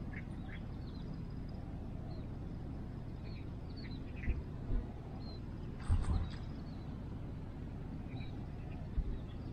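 Outdoor ambience by the water: a steady low rumble with scattered short bird chirps. A few soft thumps come through, the loudest about six seconds in.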